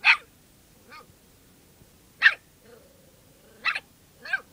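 Small dog barking at a lizard in short, sharp, high-pitched yaps, about five of them, irregularly spaced.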